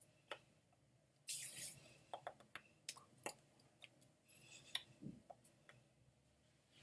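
Near silence in a small room, broken by a few faint sharp clicks and taps and a short hiss a little over a second in.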